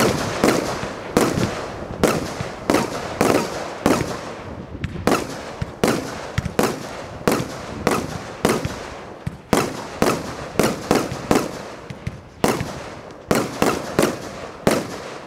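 Firework barrage cake firing pink peony shells with mine and tail in quick succession: sharp reports about two a second, each fading quickly. The firing stops near the end.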